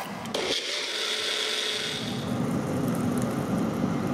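Countertop blender motor running for about two seconds, puréeing a cooked tomato-and-onion sauce, with a steady high whine. After that a rougher, lower noise takes over as the purée is poured into the frying pan.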